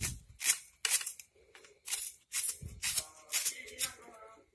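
A small kitchen knife slicing through a red onion held in the hand, with no chopping board: short crisp crunching cuts repeating irregularly, about two to three a second.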